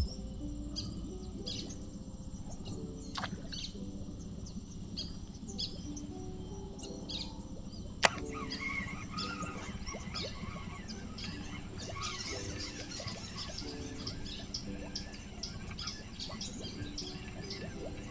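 Many short bird chirps over a soft melodic background music track, with one sharp click about eight seconds in.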